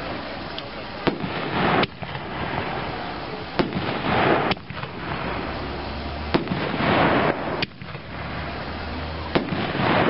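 Brothers Brave New World reloadable artillery shells firing from a mortar tube and bursting in the air: about seven sharp bangs a second or two apart, with noisy stretches between them.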